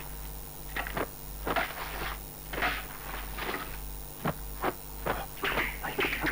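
A large calligraphy brush swung and twirled through the air in martial-arts flourishes: a string of short whooshes and swishes that come faster in the second half, over a steady low hum.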